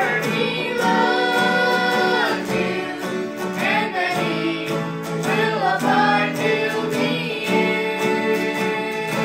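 Bluegrass gospel group singing in harmony to acoustic guitars and a banjo, with voices and strings holding one long chord from about three-quarters of the way through.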